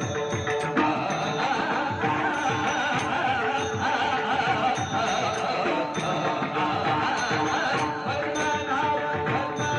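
Marathi Warkari bhajan: a male voice singing over small hand cymbals (talkari) struck in a steady beat and a pakhawaj drum.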